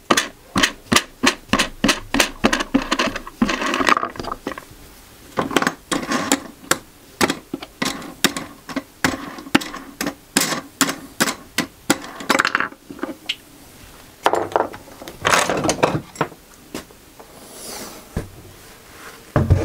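Runs of sharp, regular clicks, about three a second, from screws being driven by hand into the wooden braces of a router fence, broken now and then by brief scraping of wood.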